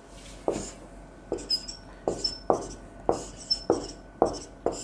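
Marker pen writing on a whiteboard: a series of short taps as the tip strikes the board, about two a second, with brief high squeaks of the tip on some strokes.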